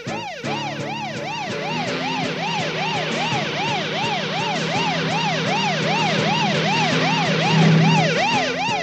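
Cartoon siren sound effect: a warbling tone sweeping up and down about three times a second, over a steady low hum.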